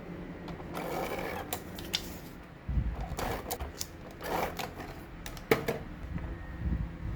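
Paper and craft supplies handled on a desk: irregular rustling with sharp clicks and a few dull thumps, the loudest click about five and a half seconds in.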